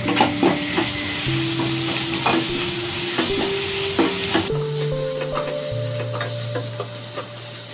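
Sliced onions, tomato and turmeric frying in oil in a non-stick wok, sizzling while a wooden spatula stirs and scrapes them, with frequent light taps against the pan. The high sizzle thins out about halfway through. Soft background music plays underneath.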